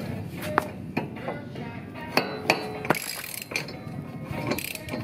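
A 1/2-inch ratchet clicking in a run of irregular clicks as it turns an inner tie rod removal tool, breaking loose the inner tie rod on a Honda Civic's steering rack.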